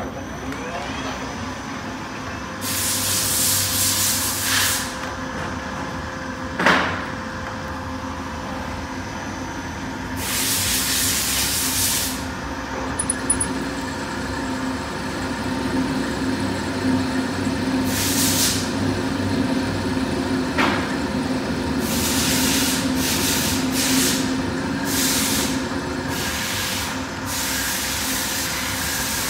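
CNC lathe running as it turns a small metal part in its chuck: a steady machine hum, with bursts of hissing every few seconds and a single sharp clunk about seven seconds in.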